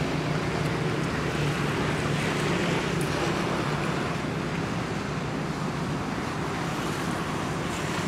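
A steady low hum under an even hiss of background noise, unchanging throughout, with no distinct events.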